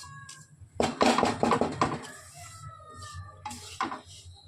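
Wooden spatula scraping and stirring semolina as it roasts in ghee in a metal kadhai. There is a quick run of rasping strokes about a second in and two more strokes near the end.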